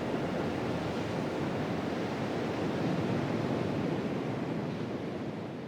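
Ocean surf washing onto a sandy beach, a steady rushing wash that fades out near the end.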